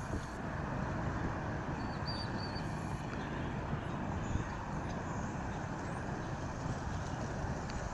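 Steady low rumble of distant engines across open water, with a faint short high chirp about two seconds in.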